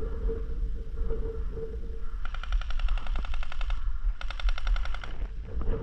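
Airsoft electric gun firing on full auto in two rapid bursts, the first about a second and a half long, the second about a second, starting a little after two seconds in.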